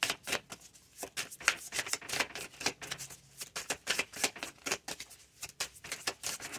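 Deck of tarot cards being shuffled by hand: a quick, irregular patter of short card clicks and slaps.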